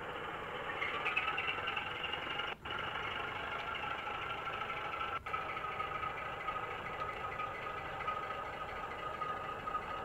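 OO gauge model train running along the layout: a steady whine over a hiss of running noise and light clatter. The sound dips out briefly twice.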